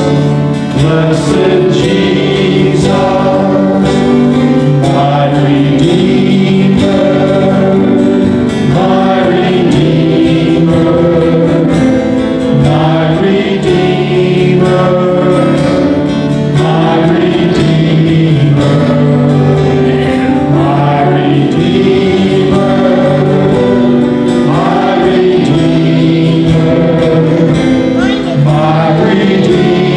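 A group of children singing a worship song together in chorus, with sustained musical accompaniment underneath.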